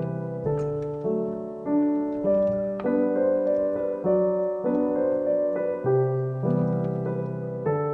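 Background music: a soft piano playing slow chords, each struck and left to fade.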